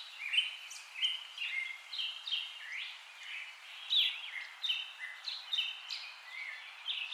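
Birds chirping: many short chirps and quick gliding whistled notes, several a second, over a steady hiss.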